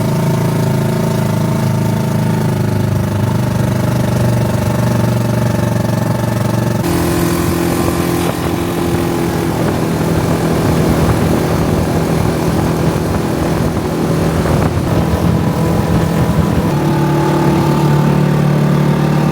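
A small vehicle's engine running steadily. Its pitch changes abruptly about seven seconds in and again near the end.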